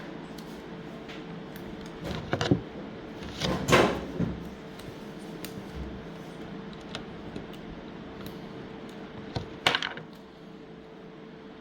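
Small hard objects being handled and set down: sharp clicks and clatters in three short clusters, about two seconds in, around four seconds in and near ten seconds in, over a faint steady hum.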